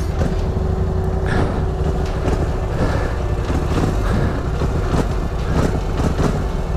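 Polaris Scrambler 1000 XP quad's twin-cylinder engine running steadily at low revs as it creeps slowly down a steep, muddy slope, with scattered knocks from the rough ground.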